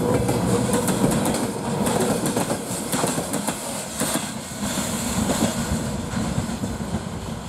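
Freight wagons rolling past on the rails, their wheels clacking over rail joints; the clacking thins and the sound fades somewhat toward the end as the last cars move away.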